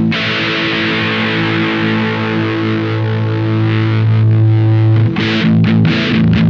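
Electric guitar played through a Witchcraft distortion/preamp pedal: a distorted chord struck once and left to ring for about five seconds, then a choppy riff of short chords broken by brief gaps.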